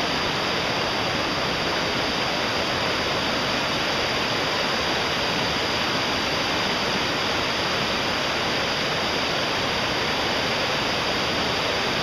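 Fast-flowing, shallow mountain river rushing over rocks and small rapids: a steady, even wash of water noise.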